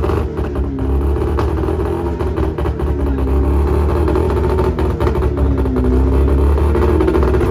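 A car engine being revved over and over in slow swells, each rising and falling back, over a steady deep rumble. A few sharp pops or clicks come through.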